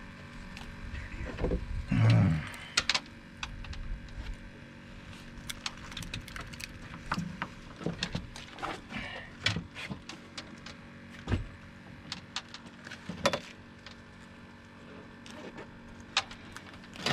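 Rummaging through gear on a fibreglass boat while searching for pliers to unhook a fish: scattered clicks, knocks and rattles, with a heavier thump about two seconds in.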